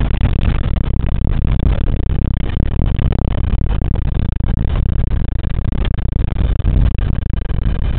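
Boeing 747-300 on its landing rollout, heard from inside the cockpit: a steady, loud low rumble of the engines and airframe.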